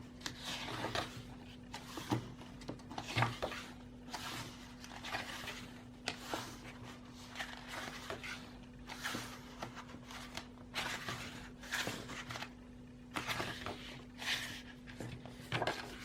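Handling of a K-pop album: irregular paper and plastic rustles and soft taps as the photobook pages are turned, over a faint steady hum.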